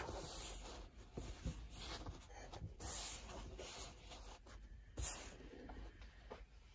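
A strip of fabric being handled and folded by hand on an ironing board: faint rustling and brushing, with short louder rubs at the start and again about three and five seconds in.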